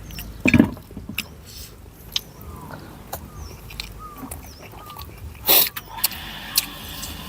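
A person eating noodle soup: scattered clicks of spoon and bowl, with two louder slurps about half a second and five and a half seconds in.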